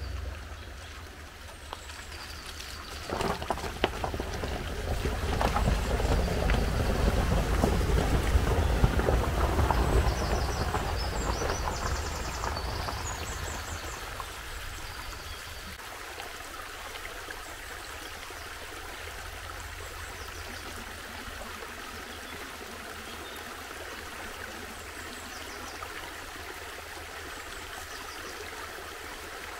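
A Chevrolet SUV towing a trailer drives past through deep puddles on a wet gravel road, its engine running and tyres splashing water. It is loudest about six to eleven seconds in, then fades away. After that, a small meltwater stream trickles steadily over gravel.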